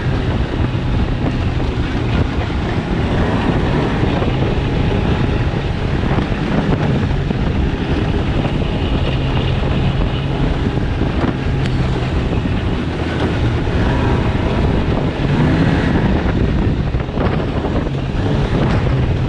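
Snowmobile engine running at a steady speed while riding, with wind buffeting the microphone.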